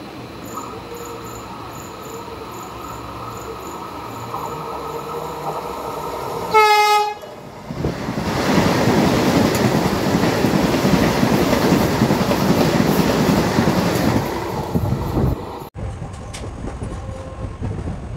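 An oncoming train sounds one loud, short horn blast about six and a half seconds in, then runs close alongside with a loud, steady rush of wheels and coaches for about seven seconds. The rush cuts off suddenly near the end, leaving a quieter steady rumble.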